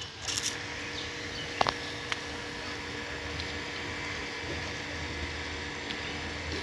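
Electric water pump motor running with a steady hum while water jets out of a hose, with two light clicks about two seconds in.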